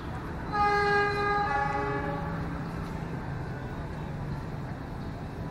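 Diesel locomotive's air horn sounding one long blast of about two seconds as the train approaches through the station, a second, lower tone joining partway through. A low engine rumble continues under it and after it.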